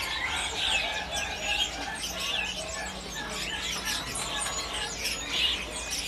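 Many caged songbirds chirping and calling at once: a dense, overlapping chatter of short, high chirps and whistles.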